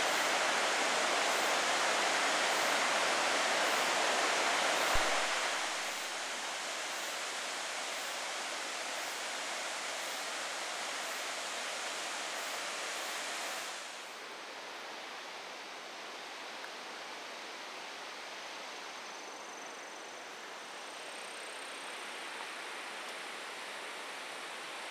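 Waterfall: a steady rush of falling water that drops in level twice, about five seconds in, where there is a single short click, and again about fourteen seconds in.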